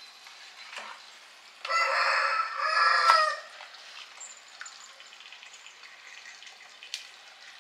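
A rooster crows once, about two seconds in, for about a second and a half. Faint sizzling from the pot of masala with raw chicken runs underneath, with a single light click near the end.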